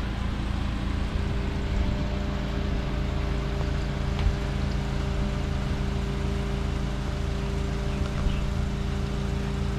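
Vehicle engine running at a steady speed, a constant drone with road noise underneath.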